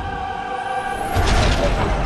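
Cinematic music: a sustained choir-like chord, with a low boom coming in just after a second in.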